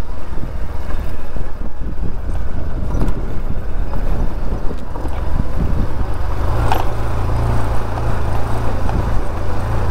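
Motorcycle engine running at low speed over a rough dirt track, with knocks and rattles from the bumps; the engine note grows steadier and louder about six seconds in.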